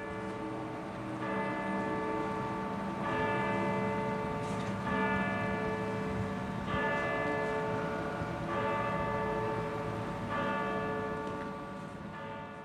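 Church bell tolling, struck about every two seconds, each stroke ringing on into the next.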